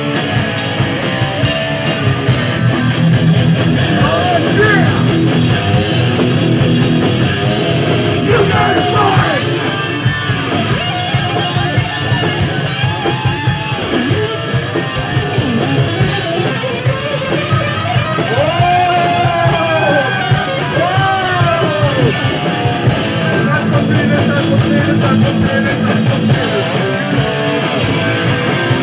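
Rock music with guitar and singing over a steady, driving beat.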